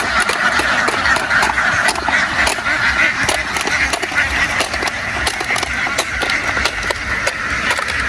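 A large flock of farm ducks quacking all at once in a dense, unbroken clamour, with many short clicks and knocks scattered through it.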